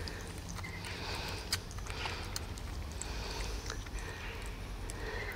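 A tiny kitten suckling milk from a syringe held to its mouth: faint, scattered small wet clicks and smacks over a low steady hum.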